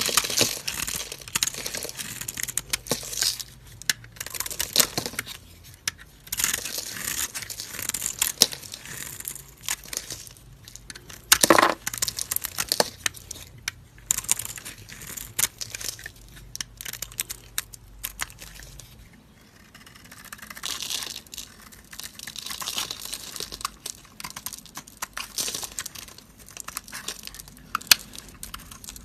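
Utility-knife blade carving into hard bars of soap: dry, crisp scraping and crackling as curls and flakes break away, with sharp snapping cracks here and there, the loudest about eleven seconds in.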